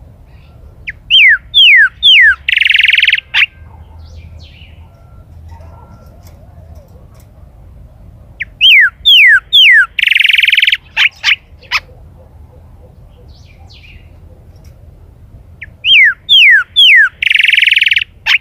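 Chalchalero singing: three phrases about seven seconds apart, each of four quick down-slurred whistles followed by a longer buzzy note.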